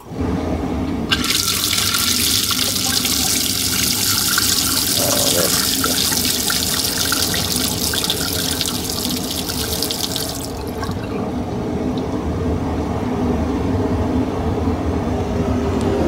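Haier HDC1804TW portable dishwasher draining: a low hum starts, and about a second later the wash water gushes out of the faucet quick-connect adapter and splashes into a stainless steel sink. The splashing stops about ten seconds in, and the low hum runs on.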